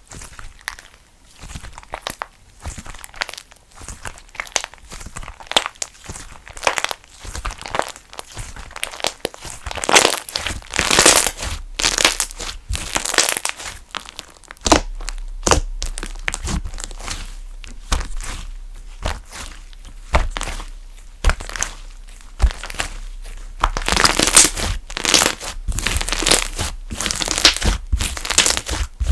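Funfetti slime being squeezed and worked by hand, giving off irregular crinkling, crackling pops. The crackling gets busier and louder about ten seconds in and again near the end.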